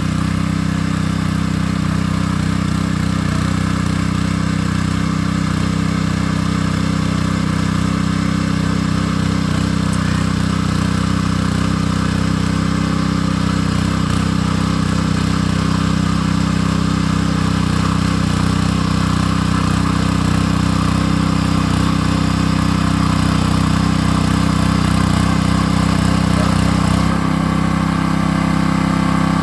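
Cakar Baja mini tiller's small engine running steadily while it works the soil into ridges, with a slight change in tone near the end.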